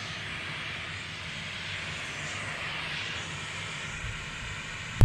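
White noise played from a phone speaker as it is moved around an EPOS B20 condenser microphone set to omnidirectional, so the hiss stays at a nearly even level. A single thump comes at the very end.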